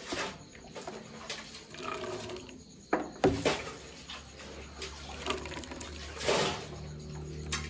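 Peanut dipping sauce being poured into a bowl, the liquid splashing and trickling. Two sharp knocks come about three seconds in, and a low hum starts at the same time.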